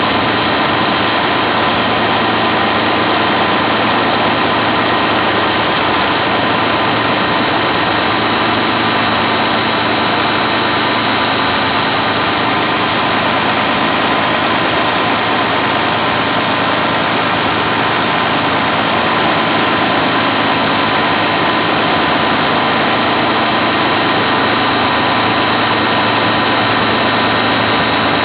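Helicopter on pontoon floats running steadily, with a constant high-pitched whine over the engine noise that holds without change.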